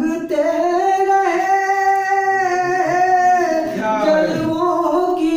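A man singing an Urdu ghazal unaccompanied, in a slow melody of long held notes that bend gently in pitch.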